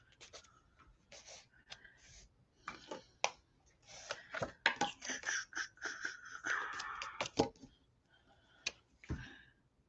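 A bullet journal notebook and loose papers handled on a desk: rustling and sliding with many light clicks and taps, busiest in the middle of the stretch.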